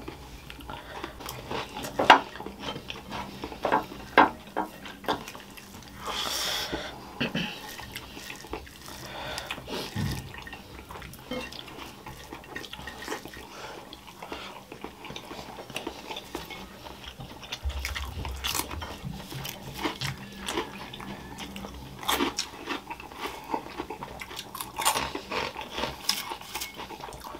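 Eating sounds: chewing, with scattered short clicks and knocks of cutlery against plates.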